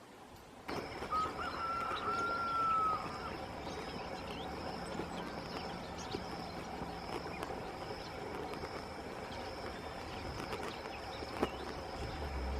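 Outdoor ambience cuts in abruptly just under a second in, and a bird gives one long, clear whistled note lasting under two seconds. A faint, steady high-pitched whine runs underneath, and there is a single sharp click near the end.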